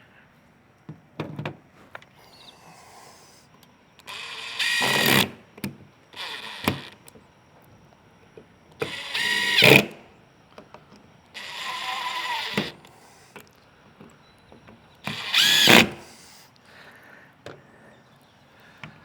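Power drill running in four short runs of about a second each, its motor pitch rising as it spins up, with a few small clicks between runs: screws being driven in to mount the compartment latch.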